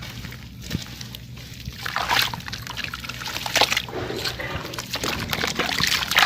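Crumbly sand-cement chunks being crushed by hand, giving a dense, irregular gritty crunching and crackling that grows busier and louder about two seconds in.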